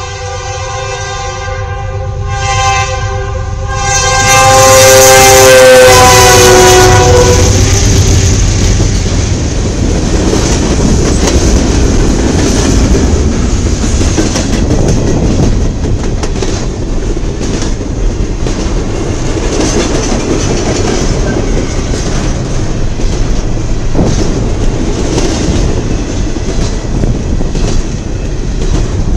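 Diesel freight locomotive's air horn sounding one long blast, rising in loudness as it nears and dropping in pitch as it passes, then dying away about eight seconds in. After that, double-stack container well cars roll past with a steady rumble and a clickety-clack of wheels over rail joints.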